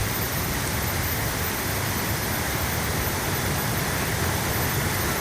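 Steady rushing noise with no distinct events, as from wind on the microphone or flowing water at the fishing spot.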